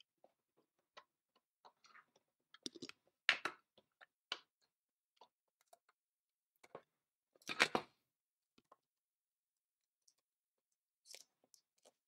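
Scattered light clicks and scrapes of steel locking forceps and fingers working at the edge of a cardboard CPU retail box. Two louder scraping rustles come about three seconds in and again about seven and a half seconds in.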